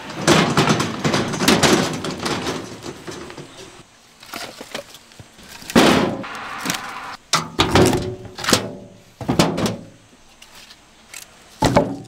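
An empty steel wheelbarrow rattles as it is pushed, then split firewood logs are dropped into its metal tray in a series of heavy knocks and clatters, the last one near the end.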